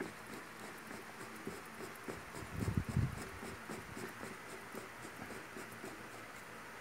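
Fine sandpaper rubbing on the copper commutator of an electric drill's armature as the armature is turned by hand: faint, irregular scratching that grows louder for a moment about two and a half seconds in. The commutator is being polished smooth and clean so the carbon brushes make good contact.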